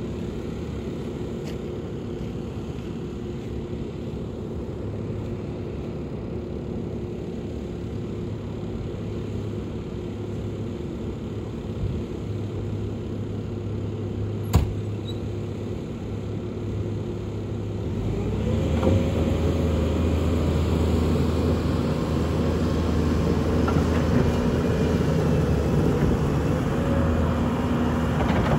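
Bobcat T770 compact track loader's diesel engine running steadily at low speed, then revving up about two-thirds of the way through and holding at a higher, louder speed. A single sharp click near the middle.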